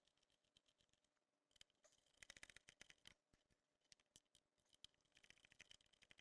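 Faint, rapid clicking in two bursts, about one and a half seconds in and again near the end, as the small bolts holding the ECU are tightened by hand with a tool.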